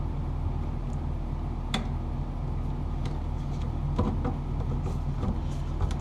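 A steady low hum runs throughout. Over it come a few short clicks and knocks, about two, four and six seconds in, from handling and twisting the bare copper ground wires together.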